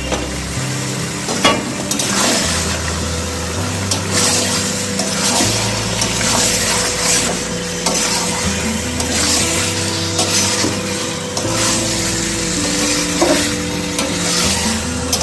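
Chicken pieces frying in hot oil and spice paste, sizzling steadily while a spatula stirs and scrapes them around the pan, with a few sharp clinks against the pan.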